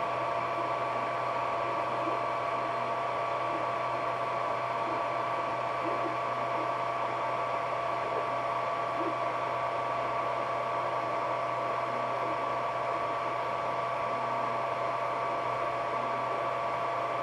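Ender 3D printer running: a steady whir of cooling fans with two steady tones over it.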